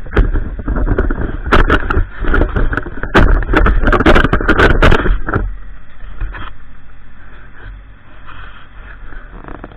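Small tractor clearing snow and ice: loud, irregular scraping and knocking for about the first five seconds over the engine's steady low running, then only the engine, quieter.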